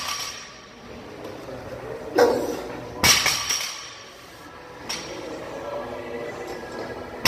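Loaded barbell with rubber bumper plates knocking down on a lifting platform between reps: a sharp thud with a metallic clink of the bar and plates about two seconds in, another a second later, and one more at the very end.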